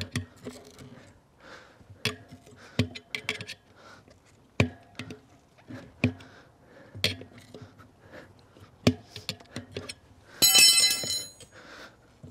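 Manual bead breaker's steel lever being worked against a motorcycle tyre, giving a run of metallic clinks and knocks about once a second as the shoe pushes the tyre bead off the rim. A loud squeak, under a second long, comes near the end.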